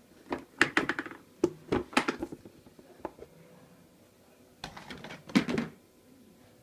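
Clicks and knocks of a clear plastic storage tub being handled and its lid opened, in two bursts of rapid clatter about four seconds apart.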